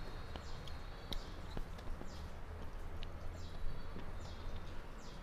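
Hand-eating sounds: fingers mixing rice on a metal plate, with a few sharp clicks, over a steady low hum. Short, high, falling chirps repeat about once a second.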